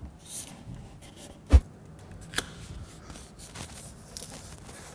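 Hands handling a spare-wheel subwoofer's plastic enclosure, rubbing and pressing adhesive anti-vibration pads onto it. There is one sharp knock about one and a half seconds in and a lighter click a little later.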